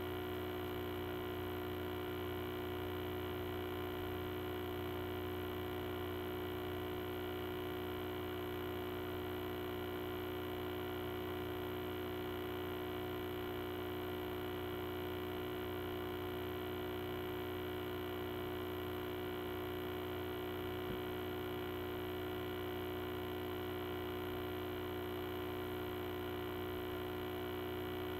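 Steady electrical mains hum and buzz, a set of fixed tones that never changes, with one faint click about three-quarters of the way through.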